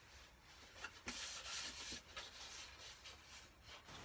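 Packing wrap rustling and crinkling as the foam canopy of a model plane is unwrapped, loudest for about a second shortly after the start.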